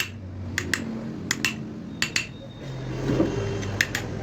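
Hammer lightly tapping a punch against the ceiling fan's metal body, staking the worn bearing seat so that the loose new bearing will fit tight. Sharp metallic taps, mostly in quick pairs about every second, with a pause about halfway through.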